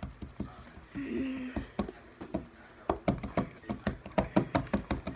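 A person chewing candy with an open mouth close to the microphone: wet smacking clicks, sparse at first and then quicker and louder in the second half, at about four to five a second. A brief hummed sound comes from the mouth about a second in.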